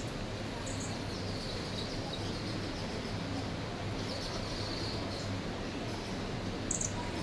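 Small birds chirping in short, scattered high calls over a steady background hum, with one sharper, higher chirp near the end.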